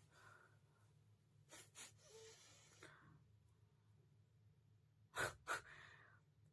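A woman sneezing: a faint pair of quick, sharp sneezes about a second and a half in, then a louder pair about five seconds in, each followed by a short breathy exhale.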